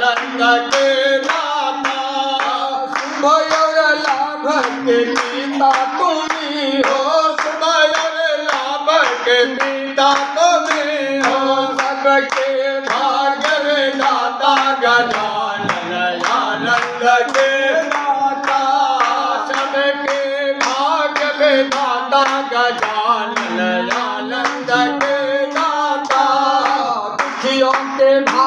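A devotional aarti hymn being sung, with hands clapping steadily in time to it.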